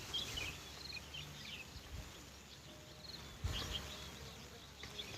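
Faint outdoor ambience with small birds chirping in short, scattered calls, and a soft knock about three and a half seconds in.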